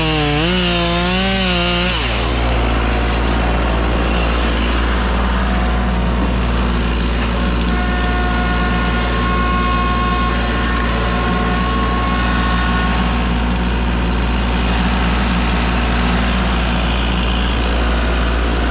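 Loud engine noise from land-clearing equipment, most likely a gas chainsaw at work. Its pitch wavers up and down for about the first two seconds, then settles into a steady drone with a heavy low hum underneath.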